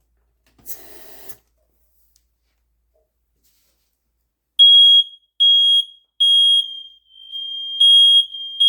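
Smoke alarms sounding on test: a loud, high-pitched beeping in groups of three beeps (the standard fire-alarm pattern), starting about four and a half seconds in, with a second, fainter alarm sounding out of step in the pause between groups. Before it, a brief noise about a second in.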